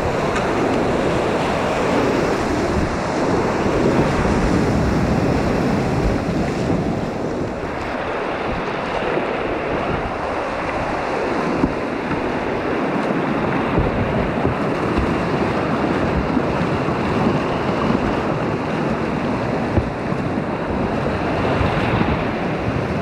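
River whitewater rapids rushing steadily and loudly, heard close up from a kayak running through them.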